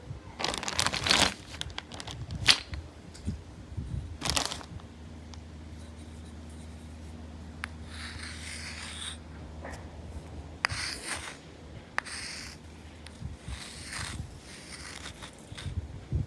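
Chalk scraping across a hard surface in short irregular strokes, with a few sharp taps between them; the loudest is a single tap about two and a half seconds in.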